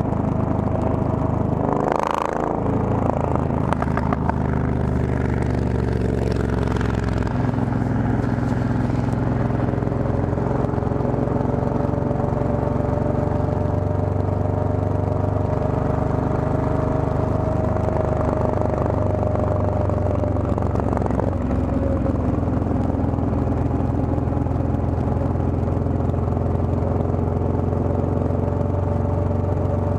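Triumph Thunderbird motorcycle engine running steadily at cruising speed, heard from on the bike. A brief rush of noise comes about two seconds in.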